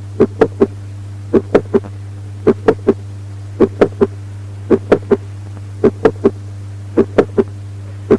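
Heart sounds with a mid-systolic click: each beat is a triplet of short sounds (the first heart sound, a sharp click midway through systole, then the second heart sound), repeating a little under once a second over a steady low hum. A mid-systolic click is the classic sign of mitral valve prolapse.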